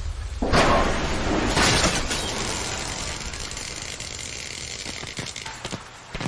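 Anime battle sound effect: a sudden loud crash about half a second in, a second burst about a second later, then a long noisy fade with a few sharp clicks near the end.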